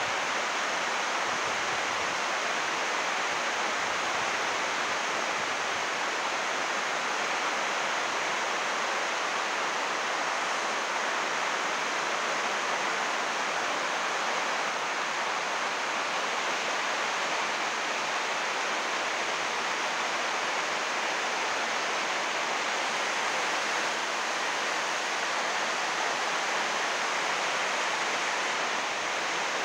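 Heavy rain falling steadily on a greenhouse roof of 6-metre-wide, 80-micron UV plastic sheeting, a dense even hiss with water running off the roof edge.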